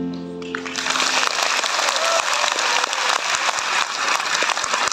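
Audience applauding, starting about half a second in as the song's last held chord dies away.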